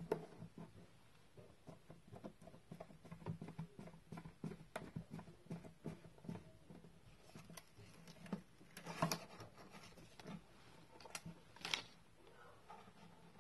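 Fingers pressing a self-adhesive LED tape strip onto the underside of a wooden shelf and peeling its paper backing. Faint, irregular small taps and crackles, with a couple of sharper clicks about two-thirds of the way through and near the end.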